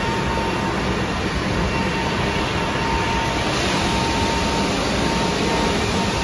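Airbus A330's Pratt & Whitney PW4168A turbofan in the early part of an air-driven start: a loud, steady rush of air with a steady whistle, and near the end a faint whine begins to rise as the engine spools up.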